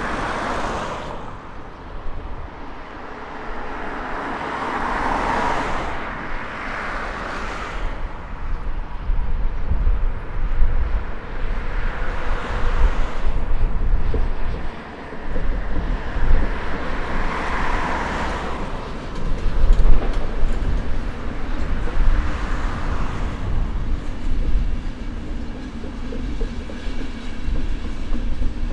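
Electric-hauled passenger train crossing a rail bridge: a continuous rumble of wheels on rails with some clickety-clack, swelling and easing in waves and growing louder about a third of the way in as the train comes by.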